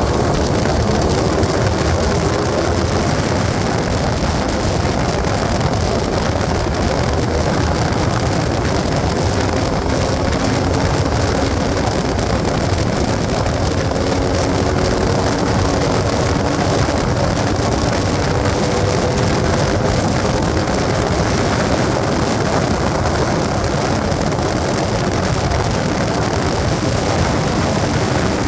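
A vehicle engine running steadily under loud rushing noise, its hum drifting slowly in pitch.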